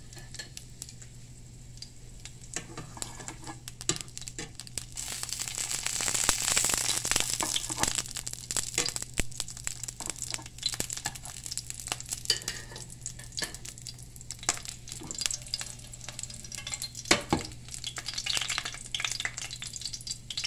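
Hot olive oil sizzling and crackling in a small frying pan around two small lizards (brown anoles) being pan-fried. The hiss swells and is loudest about five to eight seconds in, with a sharper crackle near the end.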